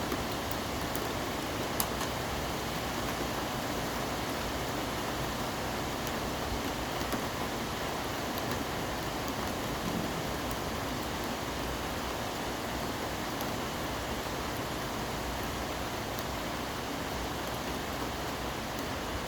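Steady hiss of traffic on a wet avenue after rain, tyres running on wet asphalt, with a few faint clicks.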